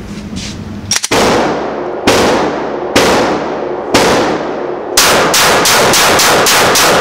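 Semi-automatic pistol shots echoing in an indoor shooting range: four single shots about a second apart starting about a second in, then a rapid string of about eight shots from about five seconds in.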